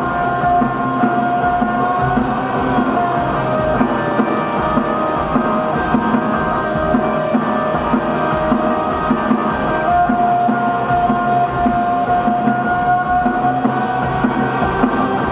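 Live rock band playing: electric guitar and long held notes over a steady drum beat.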